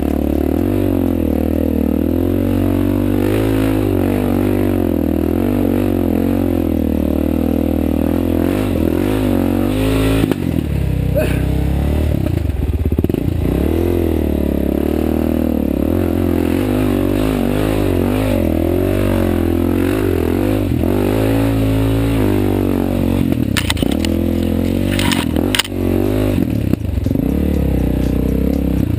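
Suzuki DR-Z400SM's single-cylinder four-stroke engine running at low speed, its revs rising and falling constantly as the bike picks its way over rocks. A few sharp knocks come late on, from the bike striking stones.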